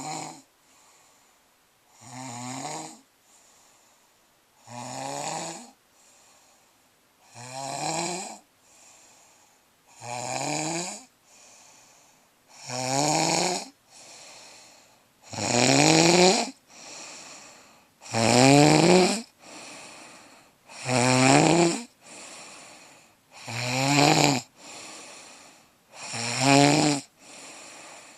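A sleeper snoring loudly and rhythmically, about one rough, buzzing snore every two and a half to three seconds, each followed by a quieter exhaled breath. The snores grow louder about halfway through.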